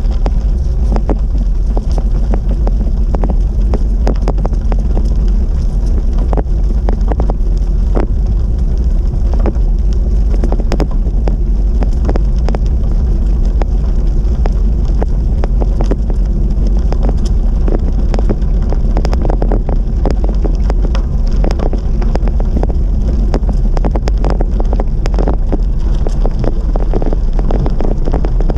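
Wind buffeting the microphone of a moving bicycle: a loud, steady, heavy rumble, with many small irregular clicks and crackles over it.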